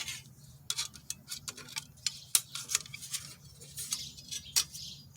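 Small backpacking box-stove parts and accessories being handled and set down: irregular light clicks and taps, a dozen or so, some sharper than others.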